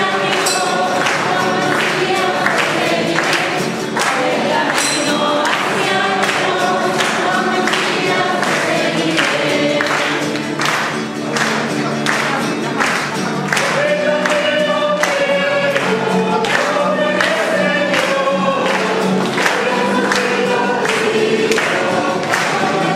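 Choir singing a religious hymn over a steady, regular beat.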